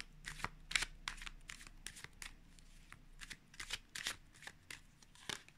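Tarot cards being shuffled and handled: a run of soft, irregular flicks and snaps of card on card.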